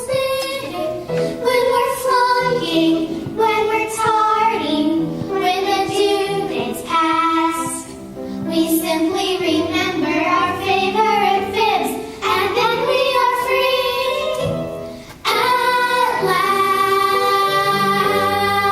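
Children singing a song together, ending on one long held note.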